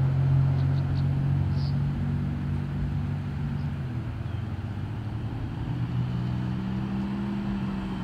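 Chevrolet Camaro's engine running as the car drives up the street toward the listener: a steady low engine note that drops in pitch about halfway through and climbs again near the end.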